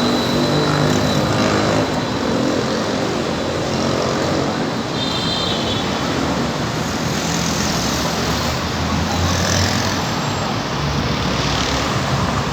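City street traffic: a steady mix of vehicle engines and tyre noise passing by.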